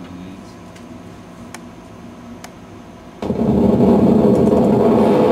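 Quiet room tone with a few faint clicks, then about three seconds in a loud, steady rumbling static switches on suddenly. This is the amplified output of the wired injection needle's electromyography (EMG) monitor, picking up the eyelid muscle's activity during the Botox injection.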